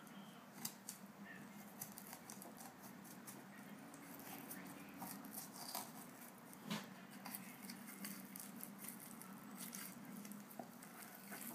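Faint scattered ticks and scrapes of a boning knife working along a pork shoulder blade, cutting the meat away from the bone, over a steady low hum.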